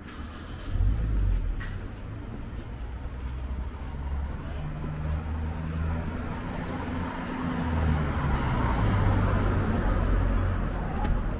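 Road traffic: a motor vehicle's engine running close by as a steady low hum, with road noise swelling from about eight to ten seconds in.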